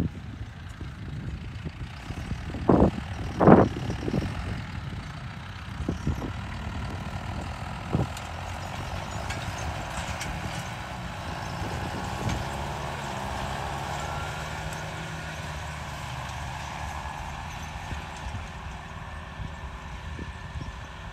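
John Deere tractor's turbo diesel engine running steadily under load while pulling a seed drill, with a faint turbo whistle rising and falling above the engine hum. Two brief loud knocks come about three seconds in.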